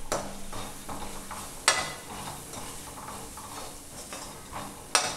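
Perforated steel slotted spoon scraping and stirring onions and freshly added ground pepper-spice powder around a kadai, over a light sizzle of oil. The spoon knocks sharply against the pan twice, about a second and a half in and near the end.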